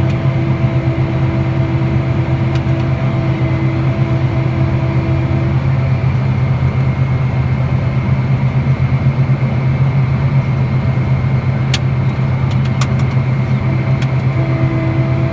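An engine running steadily, a constant low drone with a few sharp clicks about twelve seconds in.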